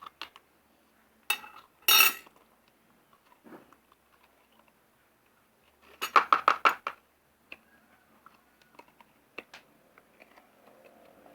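Glue tubes clinking and tapping against a container while glue is squeezed out, with a few separate clinks early on and a quick run of about seven taps about six seconds in.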